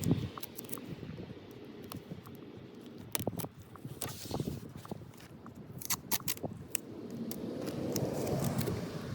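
Scattered light clicks and scrapes of hand work, with a rushing sound that fades just after the start and swells again near the end.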